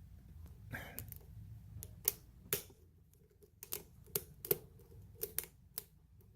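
Lock pick and tension wrench working the pin stack of a pin-tumbler challenge lock during single-pin picking: about a dozen small, sharp clicks at irregular intervals.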